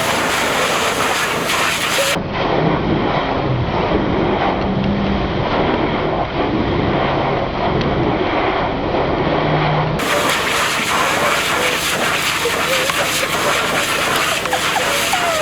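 Pressure washer jet spraying: a loud, steady hiss and rush that changes character abruptly twice, about two seconds in and again about ten seconds in.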